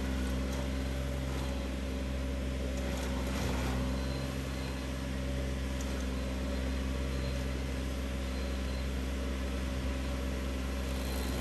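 Stump grinder running steadily, its engine under load as the spinning cutter wheel grinds into a tree stump.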